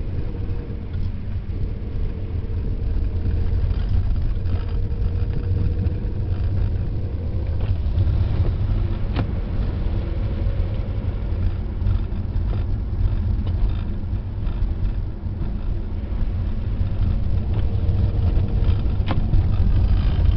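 Car being driven on a snowy road: a steady low rumble of engine and road noise.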